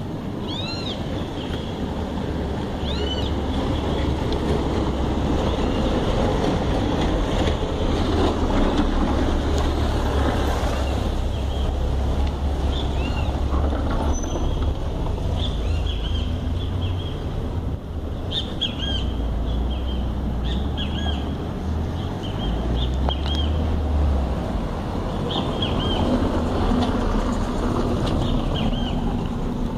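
Outdoor urban ambience: a steady low rumble with small birds chirping in short, repeated calls throughout, more often in the second half.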